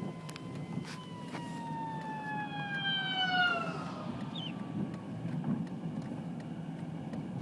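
Emergency vehicle siren holding one steady tone, then falling in pitch over about two and a half seconds before fading, over a steady low vehicle rumble.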